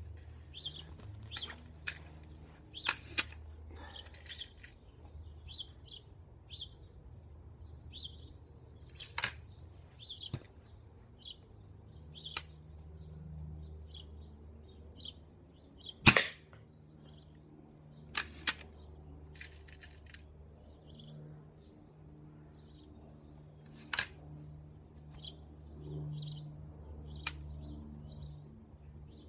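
A tuned Weihrauch HW99S .22 spring-piston air rifle, fitted with a TbT drop-in tuning kit and an MWSS moderator, fires once about 16 s in with a single sharp, short crack. Lighter clicks and knocks come at intervals around it.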